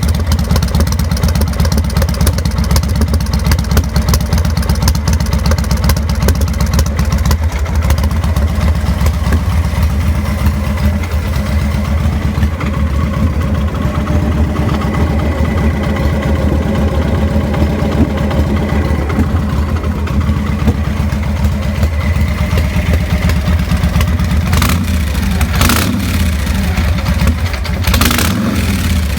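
2000 Victory V92SC's V-twin engine idling roughly, the rough idle that in this bike ends in stalling; it keeps running throughout. A few short sharp noises come near the end.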